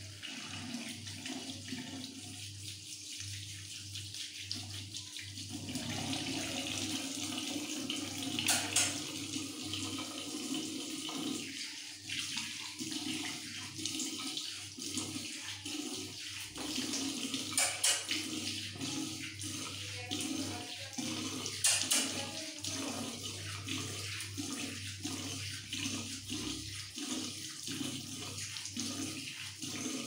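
Tap water running into a bathroom sink and splashing over hands and a wet parakeet being washed under it. Three brief, sharp, louder sounds stand out, spread through the running water.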